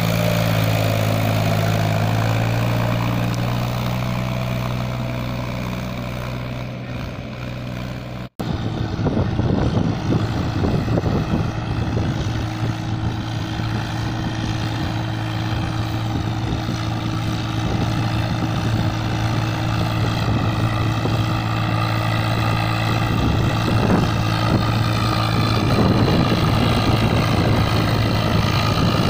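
Mahindra 265 tractor's diesel engine running steadily under a fully loaded trolley, slowly fading. After a sudden cut about eight seconds in, a Swaraj 744 tractor's diesel engine pulls a fully loaded trolley up a sandy slope at a steady note, rougher and noisier.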